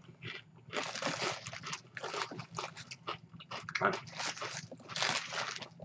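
Paper sandwich wrapper rustling and crinkling in several irregular bursts as a sub is unwrapped.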